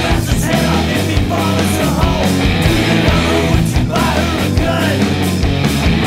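Punk rock band recording, with loud distorted electric guitars over bass and drums and no lyrics in this stretch.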